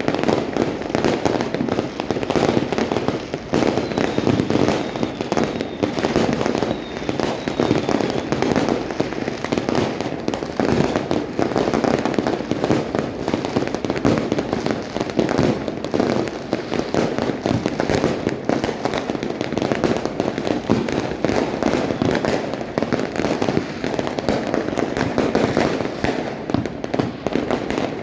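Fireworks and firecrackers going off without a break, many overlapping cracks and pops blending into a continuous crackling barrage.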